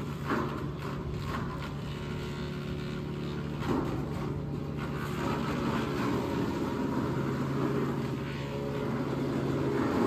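Gas-engine wood chipper running steadily at full throttle, with a rougher grinding layer from about four seconds in as branches are fed through and chipped.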